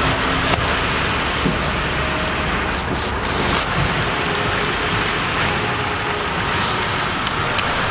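Car engine idling steadily, with a few brief clicks about three seconds in and again near the end.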